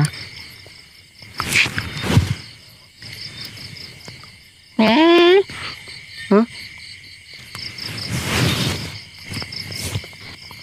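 Crickets chirping in a steady, rapid rhythmic pulse. About five seconds in comes a loud, short voiced cry rising in pitch, then a briefer one a second later, and a hissing rush around eight seconds in.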